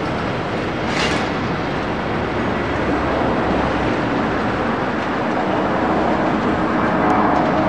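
Jet engines of a twin-engine narrow-body airliner at takeoff thrust as it climbs away just after lift-off: a steady, loud jet noise that slowly grows louder, with a low engine hum coming up in the second half.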